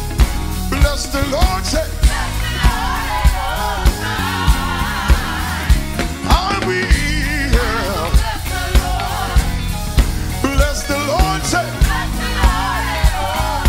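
Live gospel praise-and-worship music: a band with a steady drum beat about two hits a second and bass under lead and backing singers holding and bending sung lines.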